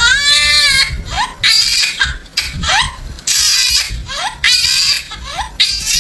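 A baby crying hard: repeated high-pitched wails, broken by short rising squeals between them.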